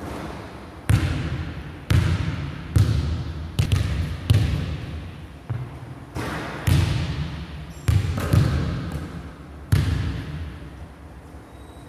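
Basketball bouncing on a hardwood gym floor, about ten separate bounces at uneven intervals, each ringing out with a long echo in the big hall.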